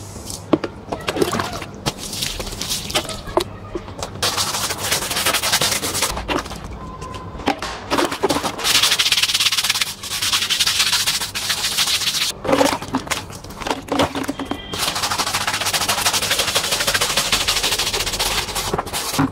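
Pressure washer spraying plain water onto rubber car floor mats: a dense crackling hiss of the jet hitting the mats, in long stretches that start after a few knocks in the first seconds.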